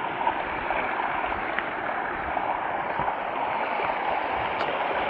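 Steady rush of fast-flowing creek water, an even hiss with no let-up.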